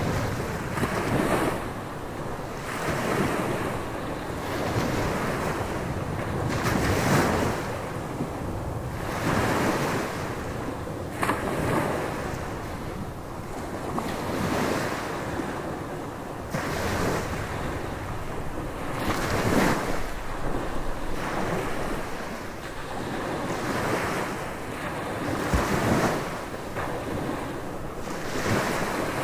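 Gulf of Mexico surf breaking on a sandy beach, with a wave crashing every few seconds in uneven swells. Storm wind buffets the microphone.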